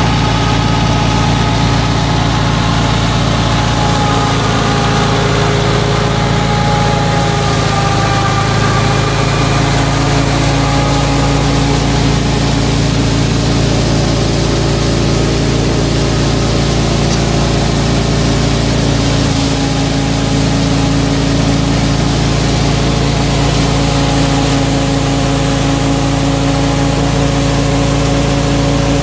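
A FIAT 640 tractor's diesel engine runs steadily at constant speed, driving a wheat thresher through its shaft. The thresher adds a steady whirring rush of machinery and straw.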